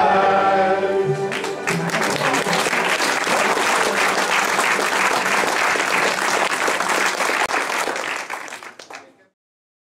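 Group singing ends on a held final note, then a crowd applauds; the clapping fades out near the end.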